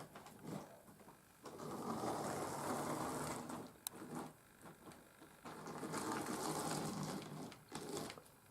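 Small electric motor and gears of a Lima model tank locomotive whirring as it runs along the track, in two runs of about two seconds each with quiet pauses between. The loco is running freshly cleaned but without its ballast weight.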